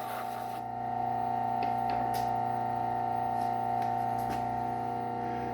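Slow-speed sharpening machine's motor running with a steady hum and whine, its leather wheel freshly loaded with compound, with a few faint light ticks.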